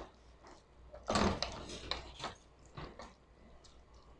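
Wooden spatula stirring and scraping a thick creamy tuna, mushroom and corn mixture in an aluminium pot, a few short scrapes and knocks, the loudest about a second in.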